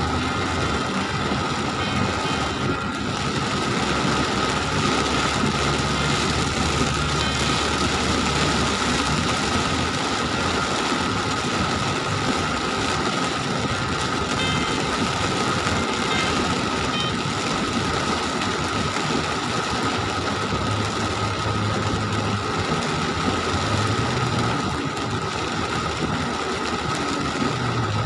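Heavy rain hitting a car's roof and windshield, heard from inside the moving car as a steady hiss, with the engine humming and tyres running through water on the flooded road.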